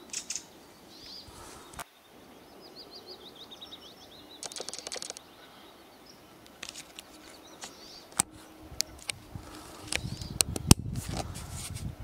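A songbird sings a short run of quick, repeated notes about two and a half seconds in, over a faint outdoor background. Sharp clicks come and go throughout, and there is a low rustling rumble near the end.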